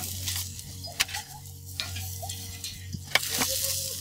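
Metal tongs clicking and knocking against a stainless-steel grill grate as rump steaks are lifted off a hot kamado, with a light sizzle from the grill. The clicks come every second or so, the loudest about three seconds in, over a low steady hum.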